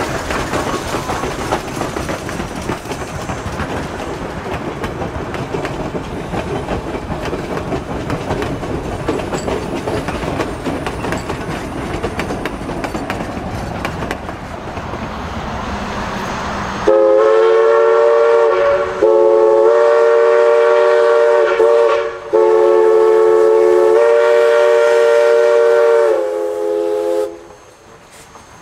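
Narrow-gauge steam train running by with a steady rush of noise, then, about 17 seconds in, the steam whistle of East Broad Top 2-8-2 Mikado No. 16 sounds several tones at once in three long blasts, the last trailing off before it stops.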